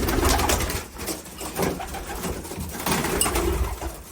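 Pigeons cooing, mixed with loud rustling and short knocks, loudest in the first second.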